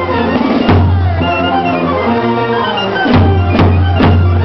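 Parade music: a melody over a steady low note, with a drum stroke about a second in and three more near the end.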